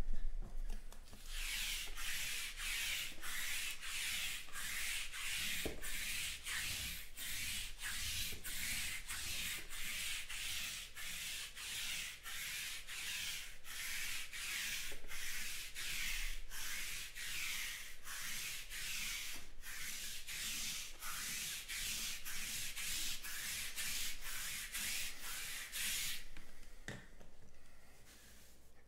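Sticky lint roller rolled back and forth over a cloth table cover: a rasping rub, about two strokes a second, that stops a few seconds before the end.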